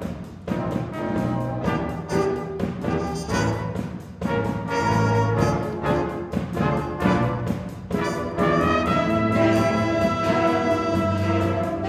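School concert band playing, brass prominent. Short repeated notes give way about eight seconds in to held chords that grow louder.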